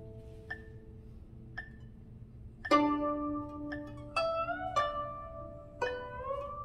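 Guzheng plucked with fingerpicks in a slow melody: a few soft high notes, then a louder note about two and a half seconds in and single notes that ring on, several of them bent upward in pitch as the left hand presses the string.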